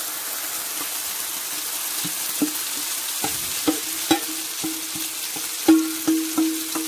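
Hot oil sizzling steadily as a potato-and-egg batter is tipped into a frying pan. From about two seconds in comes a run of metallic knocks, roughly two a second, each ringing briefly, as the metal mixing bowl is tapped to shake out the last of the batter.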